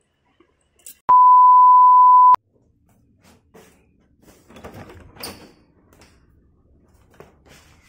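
A single steady electronic beep, one pure tone held for just over a second and cut off sharply, followed by faint rustling and handling noises.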